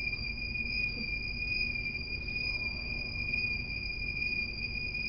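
A steady high-pitched electronic tone, with a fainter tone an octave above it, from a small sound source on a string being whirled in a circle overhead for a Doppler-shift demonstration.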